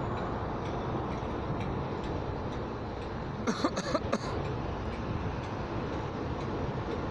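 English Electric six-cylinder diesel engine of a Class 08 shunter running steadily with a clattering beat, freshly fired up and smoking from the exhaust. A few sharp clicks come about halfway through.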